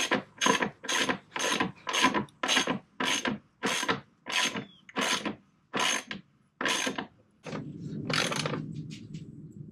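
Ratchet wrench being worked in quick back-and-forth strokes, about two a second and slowing slightly, each stroke a short burst of clicking. About seven and a half seconds in the strokes stop and a lower, steadier sound takes over.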